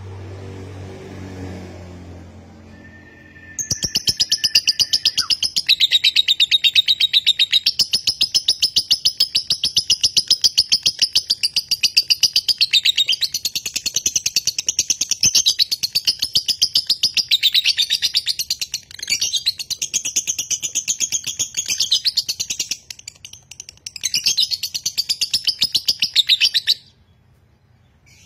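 A lovebird's long, rapid, nonstop chattering trill, the 'ngekek panjang' song that marks a konslet lovebird. It starts a few seconds in, runs with only brief breaks for over twenty seconds, and cuts off suddenly near the end.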